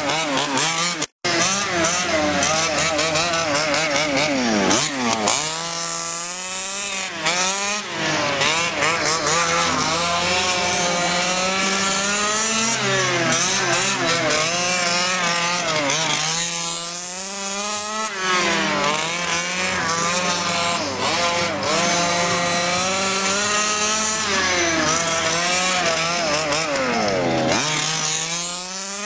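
The two-stroke gas engine of a 1/5-scale HPI Baja RC car, revved hard and let off again and again as it laps, so the engine note keeps climbing and falling. The sound drops out for a split second about a second in.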